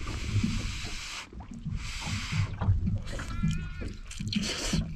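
A person slurping noodles: three hissing slurps, the first two back to back and the third near the end. A short high wavering tone comes between the second and third.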